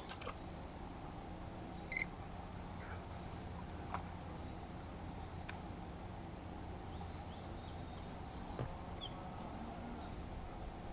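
Quiet outdoor ambience: a steady high-pitched drone and a low hum, broken by a few faint clicks and a couple of short, high chirps.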